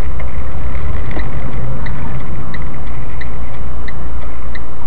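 Car's turn indicator ticking steadily, about three ticks every two seconds, over the low rumble of the engine and road noise inside the cabin.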